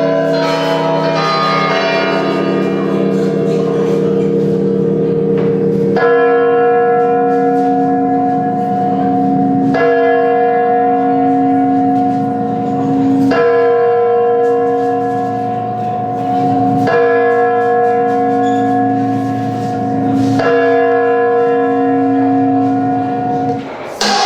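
Bells ringing: a cluster of bell tones at first, then a single deep bell tolling at an even pace, one stroke about every three and a half seconds, each ringing on until the next.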